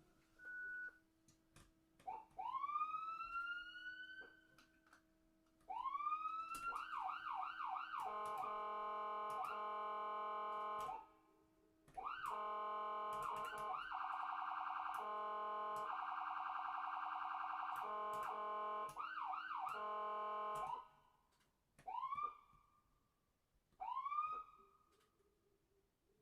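Electronic ambulance siren cycling through its tones. It starts with a long rising whoop, then fast repeated yelps, a held buzzy horn-like tone and a rapid warble. More yelps follow, and a few short rising whoops come near the end, with brief pauses between the sections.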